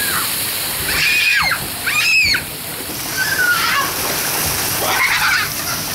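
Water pouring down over a water-park play tower and splashing steadily. Children's high-pitched shouts or squeals come through about one, two, three and five seconds in.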